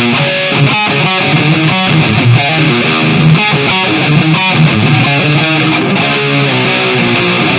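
Kramer Baretta Special electric guitar played through an amplifier on a heavily distorted setting: a riff of picked chord strikes and single notes, with a few held notes near the end.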